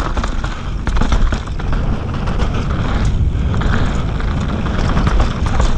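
Mountain bike rolling fast down a dirt trail strewn with loose stones. Wind rushes over the camera microphone with a low rumble, and the tyres on gravel and the rattling bike give many short clicks and knocks.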